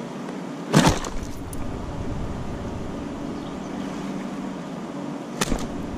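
Two sharp knocks with a short clatter, about a second in and again near the end, from a landing net and a caught pike being handled at a float tube, over a steady hiss of wind and water.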